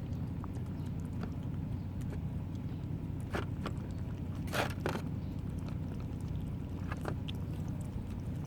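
A steady low rumble with a few scattered short clicks and taps, the loudest about halfway through.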